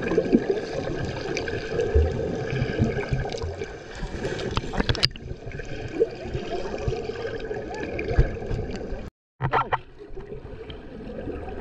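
Muffled underwater water noise picked up by a camera held just below the surface: churning and bubbling water with scattered sharp clicks and knocks. The sound briefly cuts out about nine seconds in.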